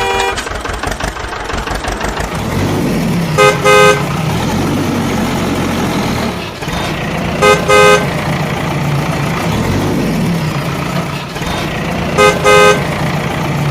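Vehicle horn sounding a pair of short toots three times, about four seconds apart, over a steady engine rumble that starts a couple of seconds in.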